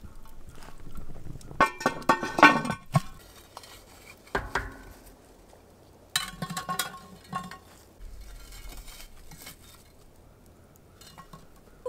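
Metal clinks and scrapes of a Dutch oven and its lid being handled while hot coals are set on the lid, loudest about two and a half seconds in, with a second cluster of clinks about six seconds in.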